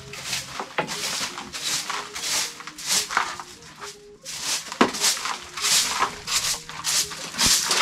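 A short-handled bundle broom of dry grass sweeping a bare earth floor: quick scratchy swishes, about two strokes a second, with a brief pause about four seconds in.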